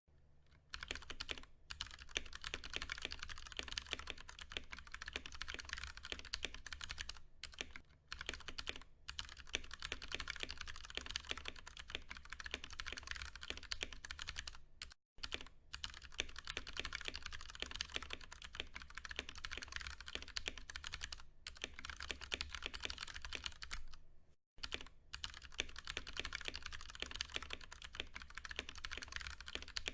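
Fast continuous typing on a Ducky One 2 Mini mechanical keyboard with Cherry MX Brown tactile switches: a dense patter of key clacks, broken by short pauses near the start, about halfway through and about three-quarters through.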